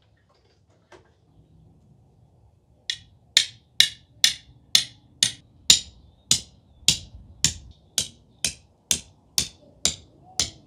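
A steady series of sharp knocks, about two a second, starting about three seconds in and keeping an even beat.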